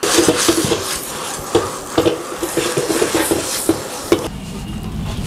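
Long metal spatula scraping, clanking and knocking against a wok as cabbage is stir-fried over a high gas flame, with irregular sharp knocks among the continuous scraping.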